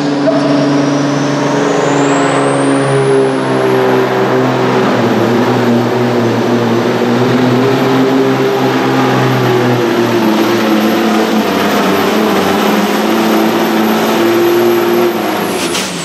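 DAF 95 pulling truck's diesel engine running flat out under load as it drags a pulling sled, loud and steady, with a high whistle that climbs over the first few seconds and then holds. Near the end the sound cuts off abruptly.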